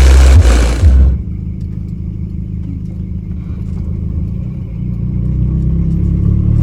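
A car sound system pounding out very loud deep bass cuts off about a second in, leaving the Volkswagen Saveiro's engine running steadily, growing a little louder near the end.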